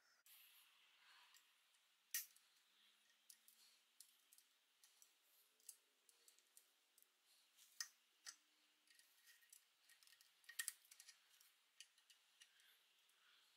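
Faint, scattered clicks and small metal taps as a rubber-tyred wheel and its axle hardware are fitted to the pressed-steel frame of a Doepke Adams toy road grader, worked by hand and with needle-nose pliers. The sharpest clicks come about two seconds in, near eight seconds and near eleven.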